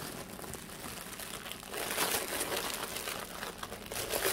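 Plastic packaging crinkling and rustling as a tote bag in a clear plastic sleeve is handled and pulled out of a plastic mailer bag. It grows louder about halfway through, with a louder rustle at the very end.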